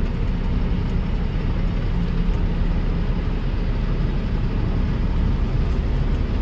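Steady engine and road noise heard inside the cab of a truck on the move, a constant low rumble with no change.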